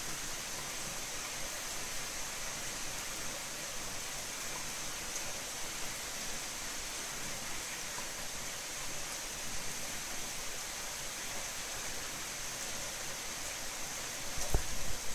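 Heavy downpour falling steadily: an even rain hiss, with a few low thumps near the end.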